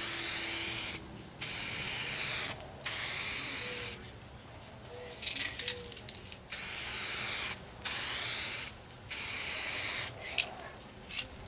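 Aerosol can of two-part clear coat with hardener spraying onto a plastic headlight housing in about six short hissing passes, each roughly a second long, with brief pauses between them.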